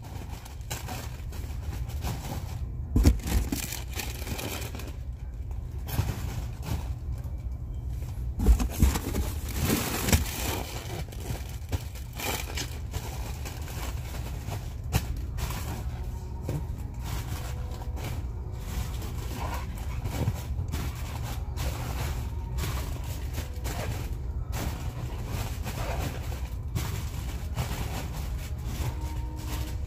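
Crinkling and rustling of plastic snack-chip bags being handled while stocking a store shelf, in quick irregular crackles over a steady low rumble.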